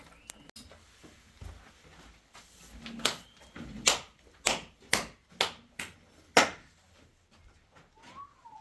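A run of about seven sharp knocks, roughly half a second apart, over a few seconds.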